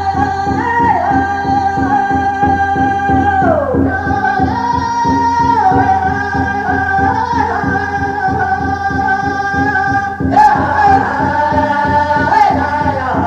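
Music with a voice singing long held notes that slide from one pitch to the next, over a steady beat.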